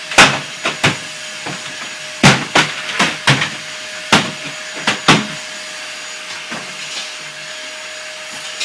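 Vacuum cleaner running with a steady hum and hiss. For the first five seconds or so it is broken by about ten sharp, irregular knocks and bangs; after that only the vacuum's hum remains.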